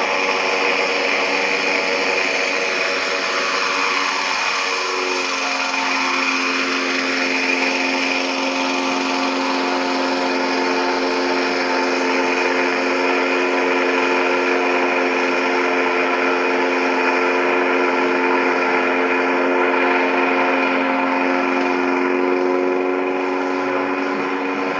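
Engine and propeller of a home-built propeller-driven aircart on ice runners, a steady droning whine at cruising speed. The pitch shifts lower about five seconds in, then holds steady.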